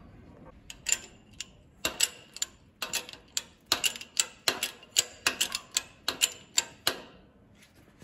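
A rapid, irregular series of sharp metallic clicks, about two or three a second, starting about a second in and stopping shortly before the end.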